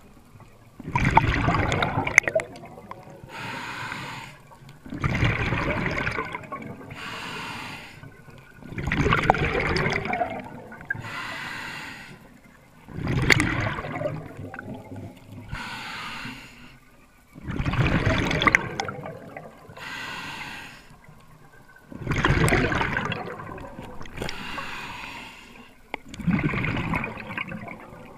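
Scuba diver breathing through a regulator underwater: a quieter hiss on each inhale and a loud rush of exhaled bubbles, one breath about every four seconds.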